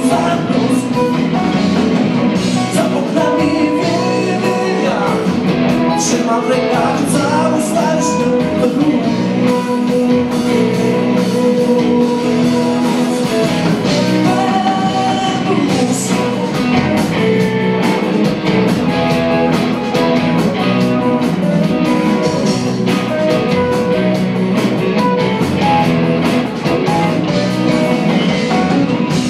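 Live blues-rock band playing: electric guitars over bass guitar and drums, at a steady level with no breaks.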